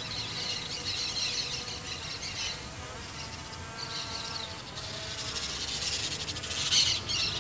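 A flock of maritacas (small parrots) screeching in rough, overlapping calls as they mob a hovering SG906 Pro 2 drone, with a louder burst of screeching near the end. Under the calls runs the drone's faint, wavering propeller whine.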